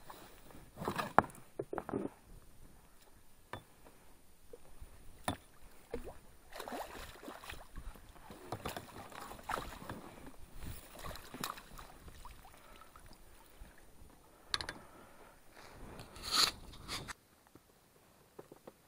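Water splashing and sloshing beside an inflatable boat as a hooked pike is drawn in and scooped into a landing net, with irregular splashes and sharp knocks of handling; the loudest splashes come about a second in and again near the end, and then the water goes calm.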